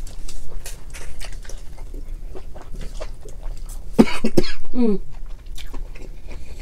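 Close-up eating sounds: chewing and lip-smacking on boiled lobster meat, with small clicks and smacks, then about four seconds in a loud cough with a short voiced sound after it. The cough comes from a mouthful with too much vinegar dip.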